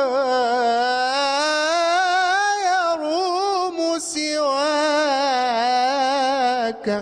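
A man's solo unaccompanied Islamic devotional chant (inshad in praise of the Prophet), held on long, richly ornamented melismatic notes that waver up and down in pitch. There is a short breath about four seconds in, and the voice stops just before the end.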